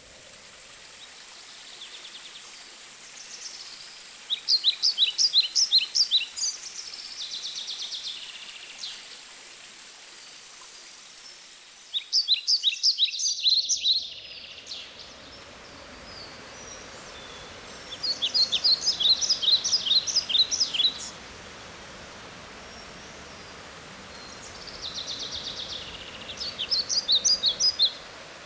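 Birdsong: quick series of sharp, high chirping notes and trills in bursts several seconds apart, over a steady rush of running water.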